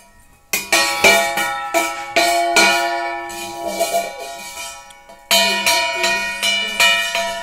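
Instrumental music: a run of sharply struck, ringing pitched notes, each fading after it sounds. It starts about half a second in, dips briefly a little past the middle, then carries on.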